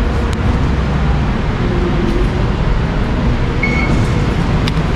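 Steady loud rumble of passing vehicles, with a short high beep a little before the end.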